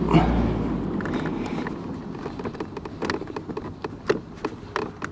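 A low rumble in the first second, then scattered clicks and knocks of plastic and metal as hands adjust the Ford Mondeo Mk4's steering column and work the ignition switch loose from it.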